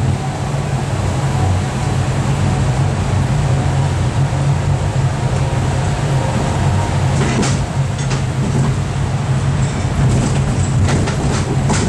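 Sightseeing train running, heard from on board: a steady low engine drone with rolling noise, and a few sharp rattles about seven seconds in and again near the end.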